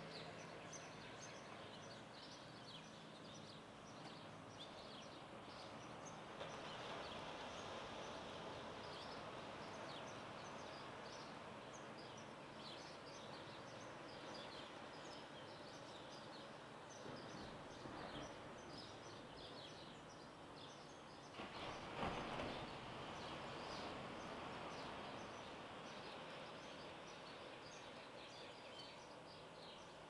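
Faint outdoor dawn ambience: many small birds chirping over a steady wash of noise. Past the middle there is one brief, louder rustle.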